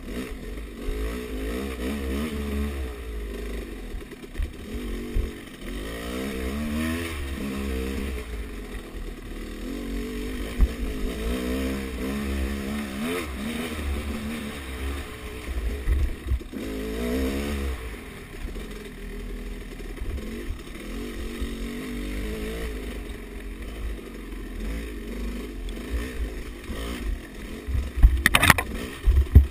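Off-road dirt bike engine revving up and down over and over as the bike is ridden along a tight woods trail, with a steady low rumble underneath. A sharp knock near the end.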